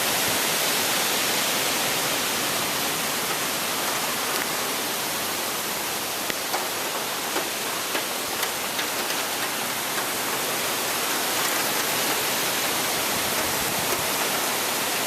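Steady hiss of heavy rain falling, with scattered sharp ticks of drops striking close by.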